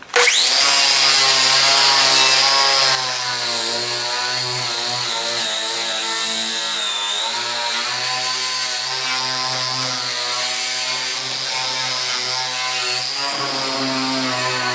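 Milwaukee HD18 cordless brushed angle grinder with a 3M Scotch-Brite purple strip disc starting up with a rising whine and running at speed. About three seconds in it gets quieter and its pitch dips and wavers as the disc works against the door panel stripping paint.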